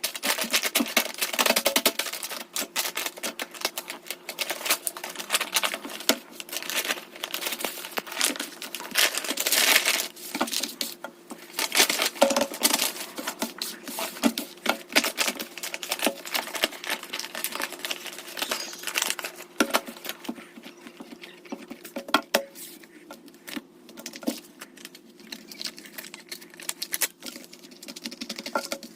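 Fingers squeezing, pressing and tapping squishy squeeze stickers: a dense run of small crinkly clicks and taps, thinning out to sparser taps near the end.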